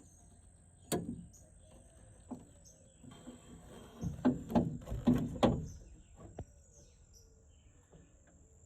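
Small plastic door-handle clips and parts on a Honda Beat's inner door panel being handled and snapped into place by hand: scattered sharp clicks and knocks, with a quick cluster of several in the middle, over a faint steady high-pitched whine.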